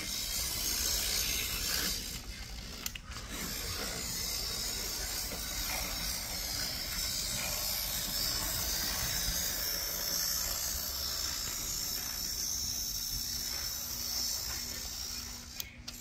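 Märklin Z-scale BR 50 model steam locomotive running along the track: a steady whir and gear rattle from its tiny motor and drive. The sound briefly drops about two to three seconds in and again near the end.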